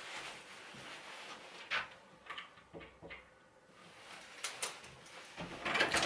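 Handling sounds at a hallway door: a few sharp clicks of the door's handle and lock over a quiet rustle of clothing, then a louder scuffle near the end as the door begins to open.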